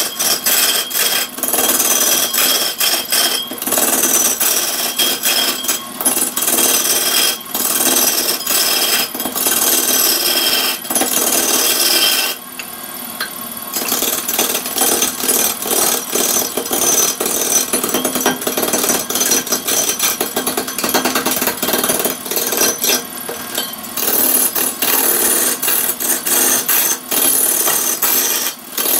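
Long-handled turning tool cutting into a large wooden log spinning on a wood lathe: a continuous rough scraping and rapid chattering as chips tear off, with a brief lull about twelve seconds in.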